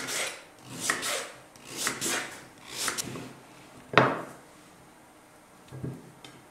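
A kitchen knife slicing through raw pumpkin and knocking onto a wooden cutting board, four strokes about a second apart. A single sharp knock about four seconds in, then a soft thud of a pumpkin chunk set down near the end.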